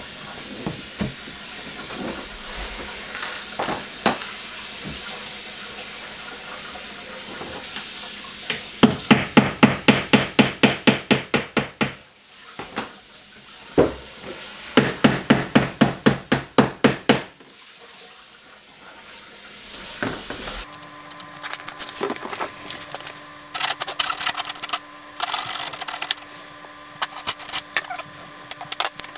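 Hand hammer nailing baseboard molding to the wall: two quick runs of about a dozen light blows each, roughly three to four a second. Later a steady hum with scattered knocks and taps.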